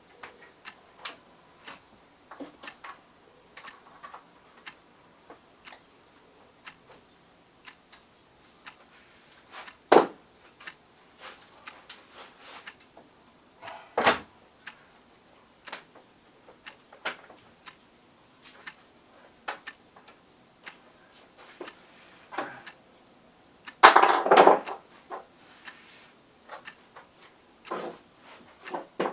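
Small metallic clicks and ticks from hand work on a PVC window's hinge fittings, with a sharp knock about a third of the way in, another about halfway, and a louder run of knocks late on.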